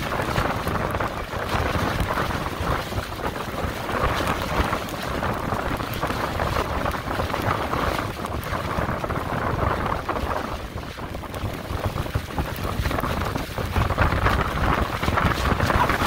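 Storm wind gusting hard over rough, whitecapped water, buffeting the microphone, the rush swelling and easing with the gusts.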